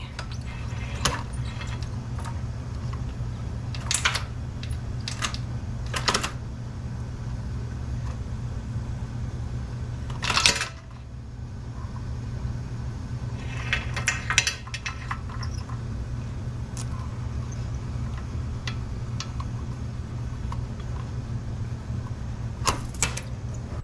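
Original roller drive chain of a 2004 Yamaha Warrior ATV being pulled off its sprockets after the master link is removed: scattered metallic clinks and rattles of the links, the loudest about ten seconds in and a cluster a few seconds later, over a steady low hum.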